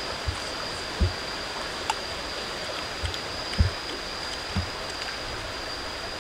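Steady rush of running water with a thin, steady high whine over it. A few soft low thumps break through now and then and are the loudest sounds.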